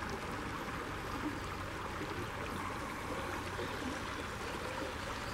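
Stream water flowing steadily over rocks, an even continuous wash of water.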